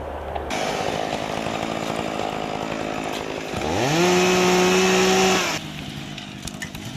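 Chainsaw running, then revved to full throttle about three and a half seconds in: a steeply rising engine whine that holds high and loud for about two seconds before cutting off suddenly.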